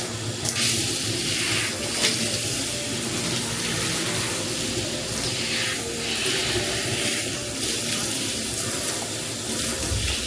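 Tap water running and splashing in a bathtub during a dog's bath, the hiss swelling and easing several times as the stream moves over her.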